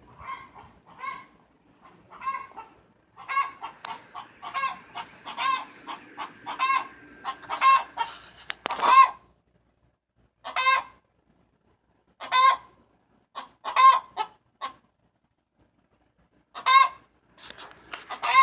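Domestic hens squabbling, with repeated clucking squawks. A quick run of about two calls a second is followed by louder single squawks a second or two apart, the loudest about nine seconds in.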